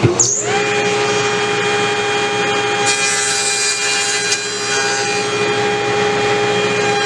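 Table saw motor spinning up to speed, then running with a steady whine. About three seconds in, the blade cuts through a wooden test piece for about a second and a half, a test pass to check the blade height.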